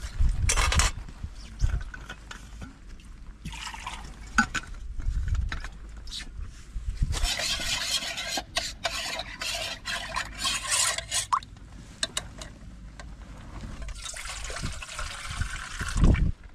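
Water poured into a small camping cook pot and stirred with a metal spoon, the spoon clicking against the pot as lemon water is mixed. The loudest stirring comes through the middle.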